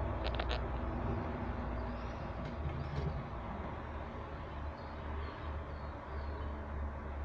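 Steady low outdoor background rumble, with three faint high ticks about half a second in.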